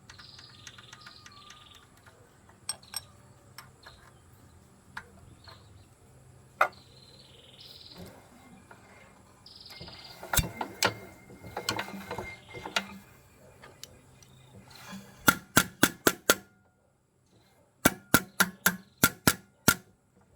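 Tools and metal parts clinking and knocking during diesel engine repair work, then two quick runs of about six sharp taps each near the end.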